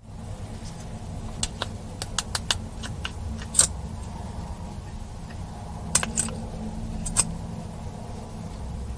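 Slime being squished and worked by hand, giving irregular sticky pops and clicks over a steady low hum.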